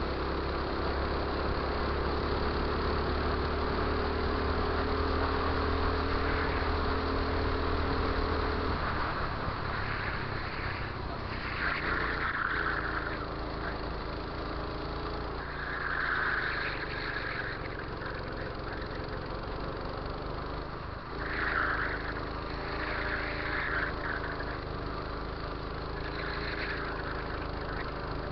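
Go-kart engine running under load, heard from on board: a steady high note for the first several seconds, then dropping and picking up again in turn. Short bursts of hissing noise come several times in the second half.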